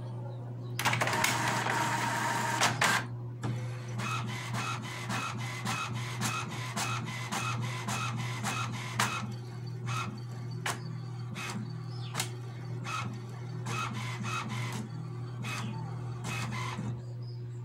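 HP DeskJet Plus Ink Advantage 6475 inkjet printer printing its test page after a cartridge change. About a second in there is a two-second burst of mechanical noise, then a steady run of regular clicks, about two a second, as the print carriage moves back and forth across the page.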